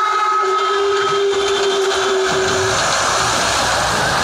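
Fairground horror-train ride: a steady whistle-like tone, ending about a second in, and a lower held tone ending a little before halfway, over a loud dense noise that carries on as the ride's cars pass.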